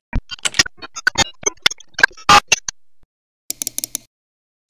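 Digital glitch sound effects: an irregular run of sharp clicks and short crackling stutters, loudest about two and a half seconds in, then a brief cluster of clicks near the end.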